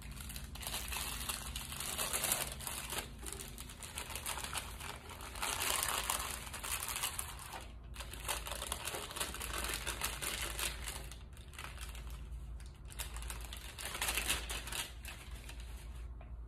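Paper wrapper of a sterile glove pack being unfolded and handled while the gloves are taken out and put on: continuous crinkling and rustling, with a brief pause about halfway through.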